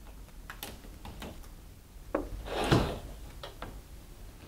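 Light clicks and knocks of tools and wall-mount hardware being handled, with one louder thump and scrape a little past the middle.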